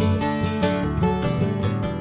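Background instrumental music, led by plucked, strummed strings with a steady pulse of notes.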